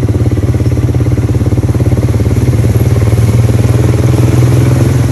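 ATV engine running loud and steady at an even speed, its rapid firing pulses clearly heard.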